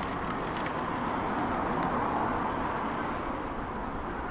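Street traffic: a passing vehicle's noise swells to its loudest about two seconds in and then eases off.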